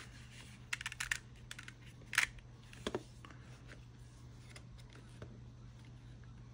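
Light clicks and taps from fingers handling the plastic case of a Viofo A119 dashcam: a quick cluster about a second in, a sharper click a little after two seconds, and two more near three seconds, over a steady low hum.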